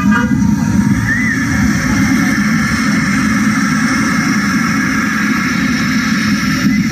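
A recorded bus engine running steadily, played as a sound effect through the stage speakers.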